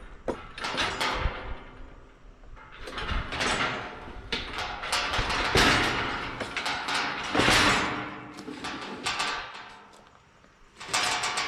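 Steel sheep-handling panels and chute parts scraping and rattling as they are moved, in about five rough bursts of a second or two each.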